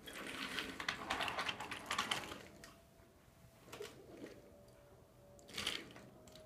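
Wooden toy train and track clattering as they are pushed and handled: fast, dense clicking for about two and a half seconds, then a few single knocks.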